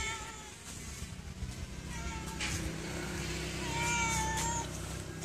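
Calico cat meowing three times: a call trailing off at the start, a short meow about two seconds in, and a longer, slightly falling meow about four seconds in. A steady low hum runs underneath.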